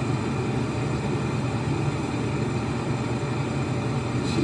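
A steady low hum with a faint hiss, unchanging and with no distinct events.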